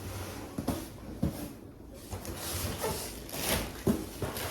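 Parcels being handled and searched through: packaging rustles, with several light knocks as items are moved.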